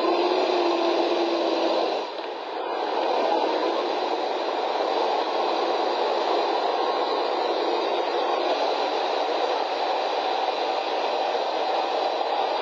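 T-72 tank's V12 diesel running under load as it churns through deep snow, a steady mechanical din with no low bass, as if from a thin old soundtrack. The sound dips briefly about two seconds in.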